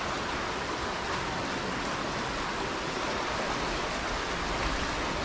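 A flooded mountain river rushing fast and high after heavy rain: a steady, even noise of fast-flowing water.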